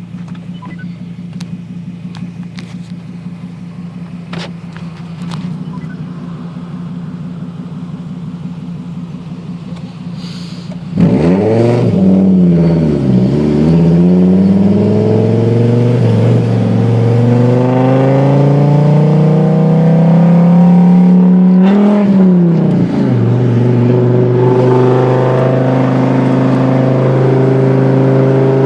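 Fiat Marea five-cylinder engine through a full 2.5-inch exhaust: a steady low drone at first, then about eleven seconds in it comes on loud under hard acceleration. The pitch climbs, dips at a gear change, climbs again, dips once more and settles at a steady higher pitch.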